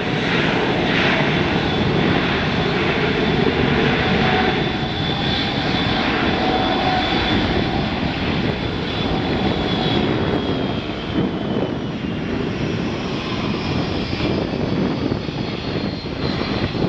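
Boeing 737-800's two CFM56-7B turbofans at takeoff thrust during the takeoff roll: a steady, loud jet noise with a high whine that slowly falls in pitch as the aircraft accelerates away and lifts off.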